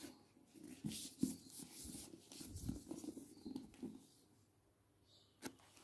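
Faint rustling and soft taps of tarot cards being handled and slid on a table, with a sharper click near the end.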